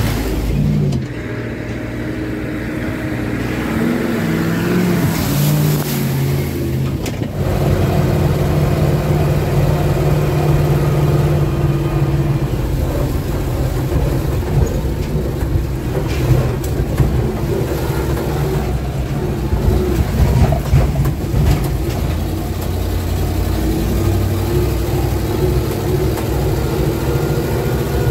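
GAZ-66 truck's V8 petrol engine pulling away, its note climbing in steps over the first several seconds. From about seven seconds in it is heard from inside the cab, running steadily under load on a rough dirt track, with occasional knocks and the note rising again near the end.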